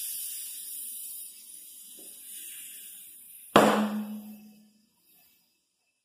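Compressed air hissing through the valve stem into a low-profile 225/45R18 tire on an 18-inch alloy wheel, then, about three and a half seconds in, a single loud, sharp pop as the tire's bead snaps onto the rim seat, with the wheel ringing briefly afterwards. The pop is the bead seating under air pressure.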